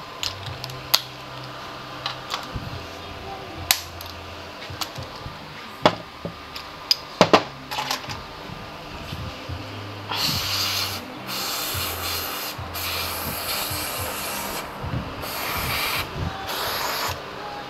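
Metal hand tools clinking and knocking as they are handled, then an aerosol spray can hissing in about five bursts with short gaps, the last stopping shortly before the end. Quiet background music runs underneath.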